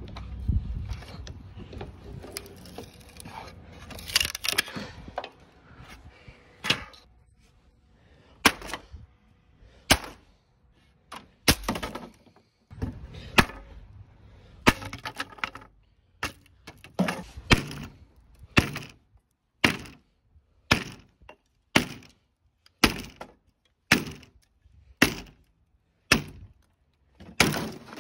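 Claw hammer striking the wooden boards of an old playset: a run of sharp, separate blows about one a second, coming a little faster near the end, after a few seconds of looser knocking and clatter.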